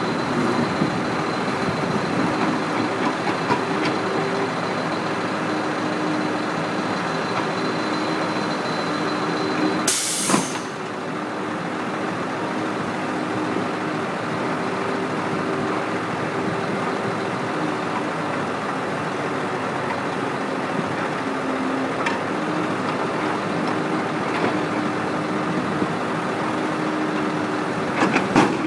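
Badger 1085D rubber-tired excavator's diesel engine running steadily under load as it digs. A short, loud hiss of air comes about ten seconds in. Near the end there are several knocks as the bucket dumps dirt into a dump truck's steel box.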